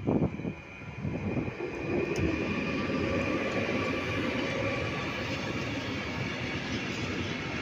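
Freight train passing close by: a red DB electric locomotive goes by at the very start with a short loud burst of noise, then a long string of open freight wagons rolls past on the rails with a steady, even rumble.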